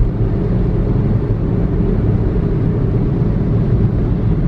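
Car driving on a wet road, heard from inside the cabin: a loud, steady rumble of road and engine noise.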